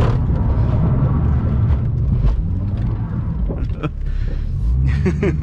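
Ford FG Falcon's engine running steadily, heard inside the cabin as a low rumble, with scattered clicks and creaks from the car rolling over the wet skid pan.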